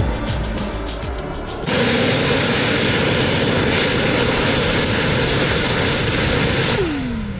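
Background music with a beat for the first second and a half, then the model BAE Hawk's JetCat P-70 turbine running in its cool-down sequence: a steady rushing hiss with a high whine. Near the end it spools down, the whine falling in pitch.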